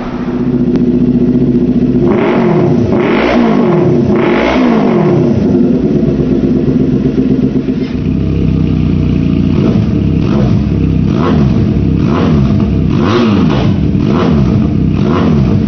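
Parallel-twin motorcycle engine idling, then revved three times, each rev rising and falling. From about nine seconds in it is blipped in a quick run of short revs.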